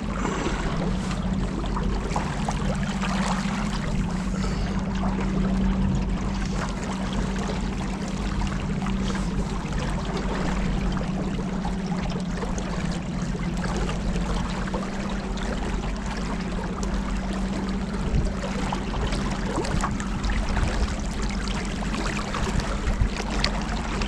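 Motorboat cruising, its engine running with a steady low hum over the rush of water along the hull.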